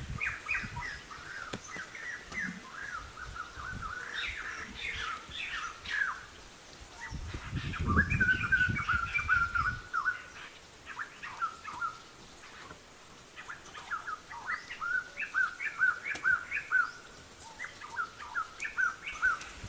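High-pitched animal calls: runs of short, quick chirps, some coming several to a second, with a low rumble about eight seconds in.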